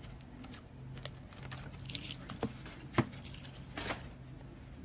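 Light handling noises of trading cards and their plastic packaging: brief crinkling and a few soft clicks and taps, the sharpest about three seconds in, over a faint steady hum.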